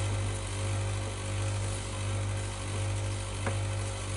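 Steady low electrical hum, with one faint click about three and a half seconds in.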